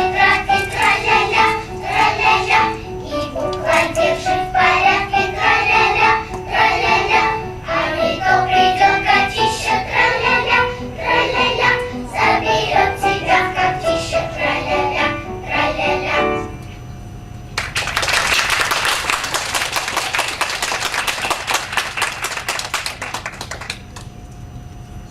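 Children's choir singing to accompaniment, the song ending about sixteen seconds in, followed by about six seconds of audience applause.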